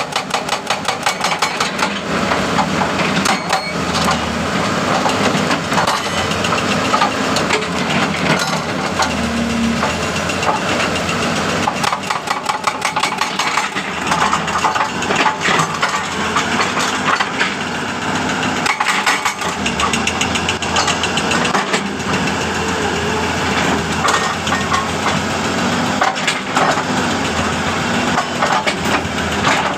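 Hitachi hydraulic breaker (jack hammer) pounding rock with rapid, continuous blows over a steady engine hum.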